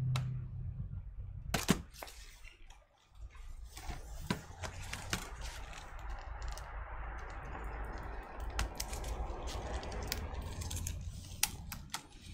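Scattered clicks and taps with soft rustling as laptop screen parts are handled.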